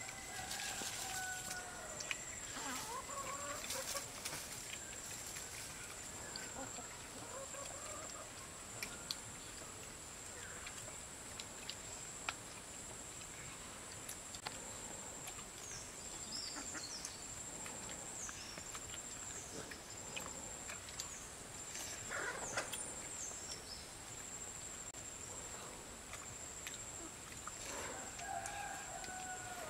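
Domestic chickens clucking, with drawn-out calls at the start and again near the end, over a steady high insect buzz.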